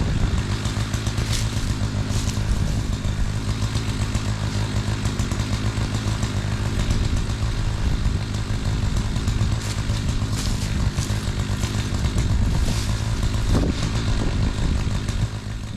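Gas chainsaw idling steadily while warming up, with wind noise on the microphone; the level drops near the end.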